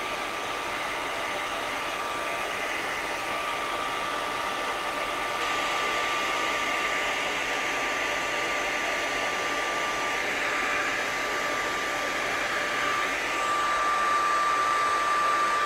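Hair dryer with a diffuser attachment running steadily: a rush of blown air with a thin high whine, which fades for a couple of seconds a little past the middle and then returns.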